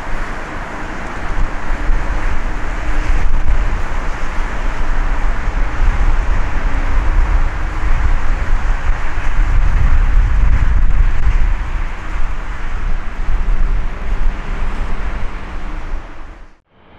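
Jet engines of a twin-engine Airbus airliner landing: a steady roar with a heavy low rumble as it crosses the threshold, touches down and rolls out on a wet runway. The sound cuts off abruptly just before the end.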